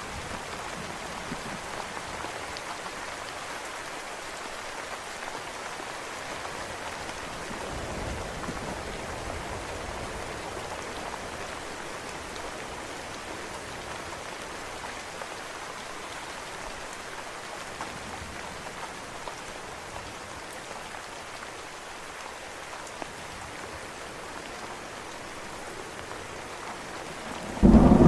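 Steady rain falling, an even hiss without a break. Just before the end a loud clap of thunder breaks in with a deep rumble.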